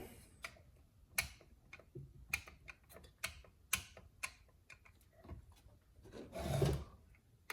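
Light, irregular clicks and taps of tools and metal muffler parts being handled on a chainsaw, with a brief louder scrape near the end.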